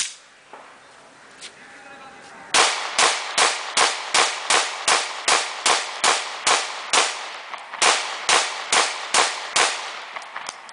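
Caracal F 9mm pistol fired rapidly, one click at the start, then about eighteen shots at roughly two and a half a second, with one short pause about two-thirds of the way through.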